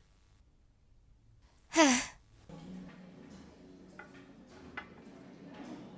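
A woman's short sigh, falling in pitch, about two seconds in after near silence. It is followed by a quiet room hum with a few faint clicks, about a second apart, like footsteps on a hard floor.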